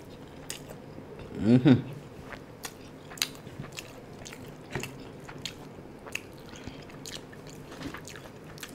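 Close-miked chewing and biting of fried chicken 65 and biryani, with many small wet mouth clicks and lip smacks. A short hummed vocal sound comes about a second and a half in.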